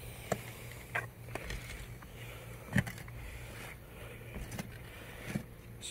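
Footsteps across a concrete tile roof: irregular short knocks and clacks of tiles shifting underfoot, the loudest nearly three seconds in, typical of loose roof tiles being walked on.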